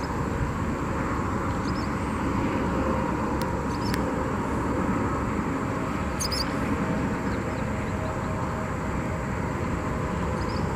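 Steady wind buffeting the microphone, a rough, even rumble with no letup.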